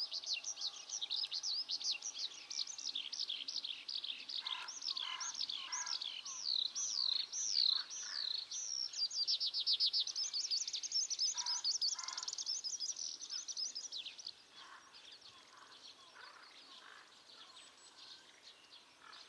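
Eurasian skylark singing: a long, unbroken stream of rapid warbling and trilling notes, which falls much fainter about three-quarters of the way through.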